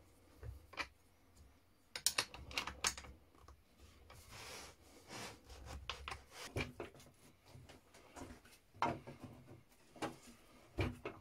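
A steel combination wrench clicking and knocking against bolt heads and nuts as bolts are tightened through a wooden block, a series of irregular light clicks with a short scraping rub about halfway through. A couple of sharper knocks near the end as a small piece of wood is handled on a metal saw table.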